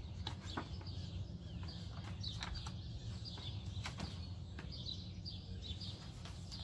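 Small birds chirping, short repeated high calls over a low steady background rumble.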